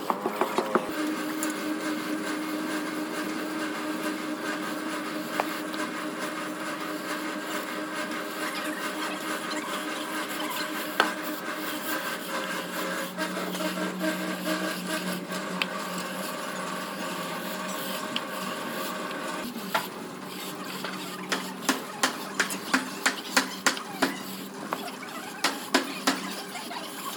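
A motorised power tool running with a steady whine that stops about two-thirds of the way through, followed by a quick series of sharp taps, about two a second.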